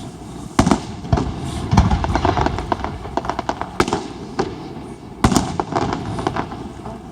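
Aerial fireworks going off: a string of sharp bangs with quicker crackling between them. Big booms come about half a second in, near two seconds, and again just past five seconds.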